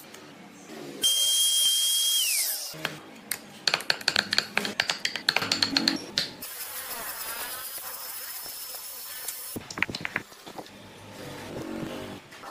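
Workshop tool sounds in quick succession. A small high-speed power tool runs with a high whine that drops in pitch as it spins down, then a stretch of rapid clicking and tapping, then a steady hiss.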